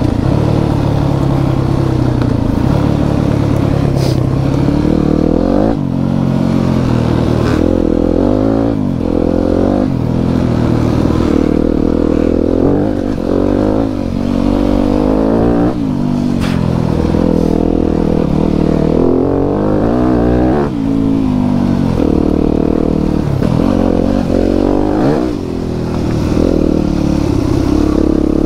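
Enduro motorcycle engine under way on a trail, its revs rising and falling over and over as the throttle is worked. A couple of brief sharp knocks cut through.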